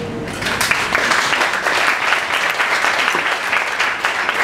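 Audience applause, many people clapping together, beginning about half a second in.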